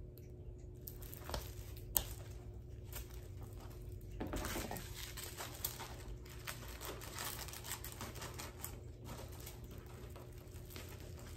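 Packaging being handled: soft crinkling and rustling with scattered light clicks and taps, a sharper click about two seconds in and a louder stretch of rustling around four seconds in.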